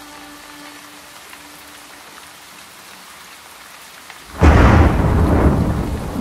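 Steady heavy rain hissing, then a loud crack of thunder about four seconds in that rumbles on for a couple of seconds.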